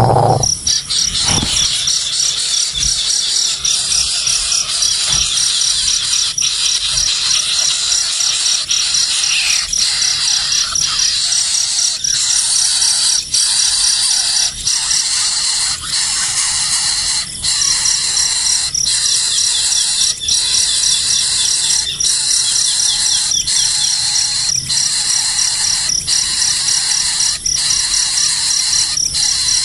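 Nestling birds begging: a continuous, loud, shrill squealing and chirping with a rapidly pulsed high note running through it.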